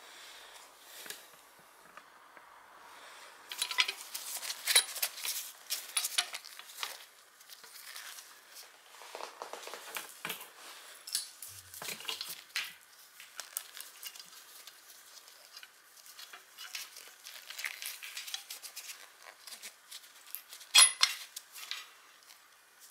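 Loose bicycle chain and a metal bar clamp being handled and fitted around a bicycle cassette: irregular metallic clinks and rattles, with one sharp clank near the end.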